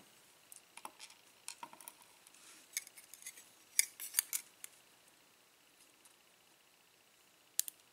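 Scattered light metallic clicks and taps of small tools on a Schlage pin-tumbler cylinder as a pin stack is worked out of its chamber, loudest a little under four seconds in.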